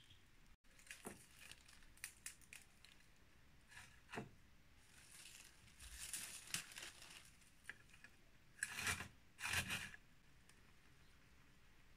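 Plastic bag rustling and crinkling in short, scattered bursts as dried mint is picked out of it by hand, with two louder rustles about nine seconds in.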